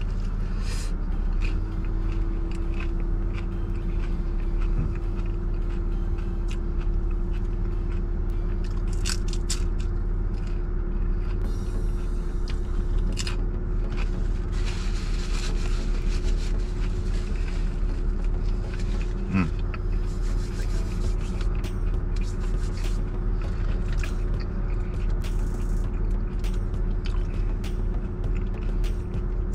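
Steady low hum of a parked car running, heard inside the cabin, with a faint held tone setting in about a second in. Over it, crunching and chewing of a hard-shell taco, with scattered clicks and rustles.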